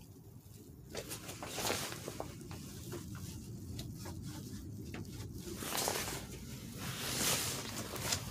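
Handling noise from someone moving about inside a car and shifting the camera: scattered light clicks, scrapes and rustles, with a few brief hissy swells.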